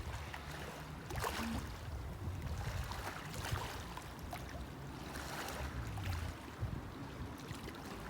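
Small sea waves washing onto a sandy beach in repeated surges every second or two, with wind buffeting the microphone as a low rumble underneath.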